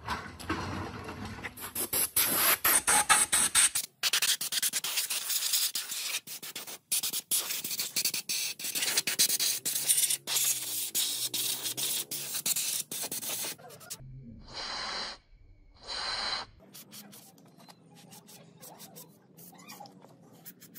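Rough scraping and rubbing, as of abrasive work on a metal part, in several short stretches broken by sudden cuts. Two short hisses come about two-thirds of the way through.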